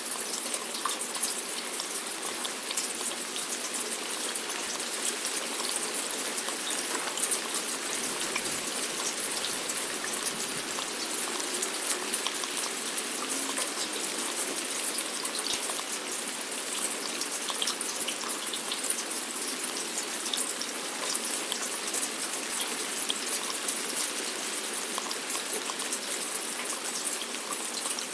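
Steady rain falling, an even hiss dense with fine, close drop ticks.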